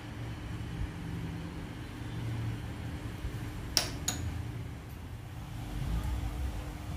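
Steady low hum over an uneven rumble of background noise, with two sharp clicks in quick succession about four seconds in.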